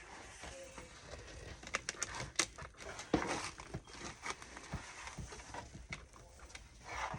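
Sticker sheets and their packaging being handled: crinkling and rustling, with many small clicks and taps.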